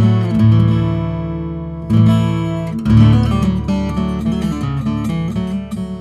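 Background music: an acoustic guitar playing chords that ring out, with new chords struck about two seconds in and again a second later.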